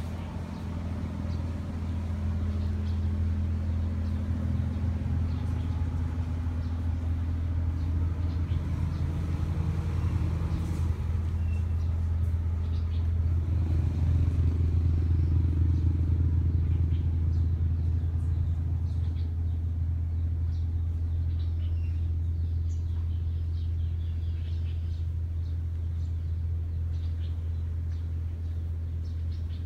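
A steady low engine-like rumble that runs on evenly and swells slightly around the middle.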